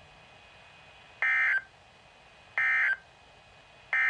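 Three short bursts of Emergency Alert System digital data tones, each about a third of a second long and a little over a second apart, over faint radio hiss. This is the SAME end-of-message code that closes a NOAA Weather Radio alert.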